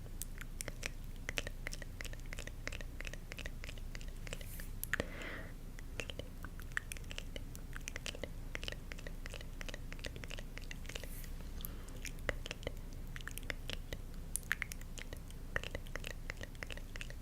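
Close-miked ASMR sounds: many small, crisp, irregular clicks and crackles, with a brief soft hiss about five seconds in.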